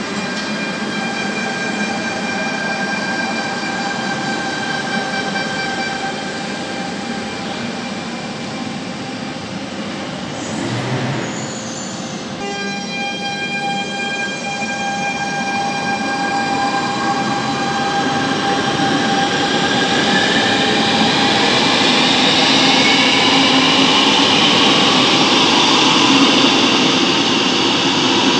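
Barcelona Metro Line 1 train at the platform with a steady electrical whine, then pulling out. Its motor whine rises in pitch as it accelerates away, and the running noise grows louder toward the end.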